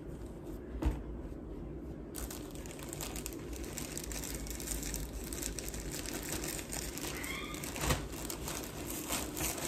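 Clothes rustling and crinkling as small garments are handled, folded and rolled into a suitcase, with a soft knock about a second in and another near the end.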